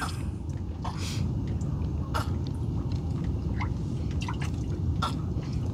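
Water dripping in scattered drops, plausibly off a wet gill net as fish are picked from it, over a low steady hum.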